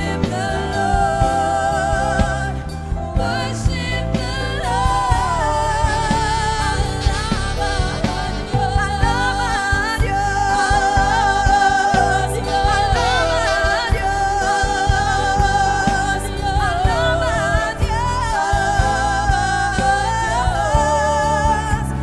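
A gospel-style song: a singer's voice with vibrato over a full accompaniment and a steady beat.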